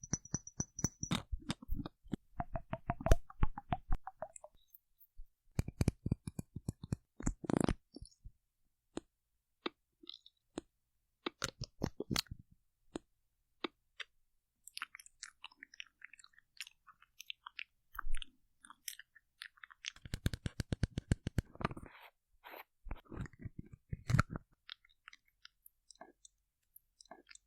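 Face-mask and skincare products handled close to the microphone: rapid runs of small moist clicks and crackles in bursts, with short pauses between them.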